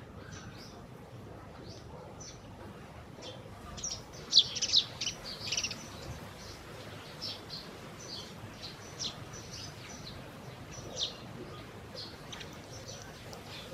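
Eurasian tree sparrows chirping: short, high chirps scattered throughout, with a louder flurry about four seconds in.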